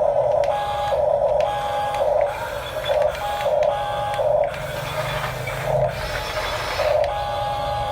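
Huina 1569 RC bulldozer's small electric motors and plastic gearboxes whirring in short stop-start bursts as the controls are worked.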